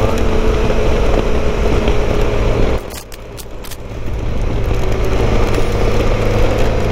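Motorcycle at steady cruising speed: engine hum under heavy wind noise. About three seconds in, the sound drops away sharply for about a second, with a few clicks, then comes back.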